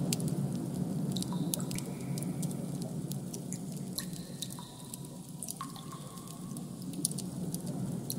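Designed ambient soundscape: a steady low hum under scattered, irregular sharp clicks, with a few faint held high tones in the middle.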